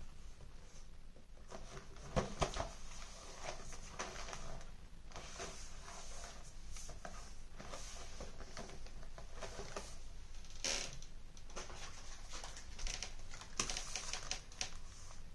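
Food packaging handled on a table: a cardboard biscuit box and a plastic-wrapped bread package rustling, with irregular light taps and clicks as they are picked up and set down, a couple of sharper knocks about two seconds in.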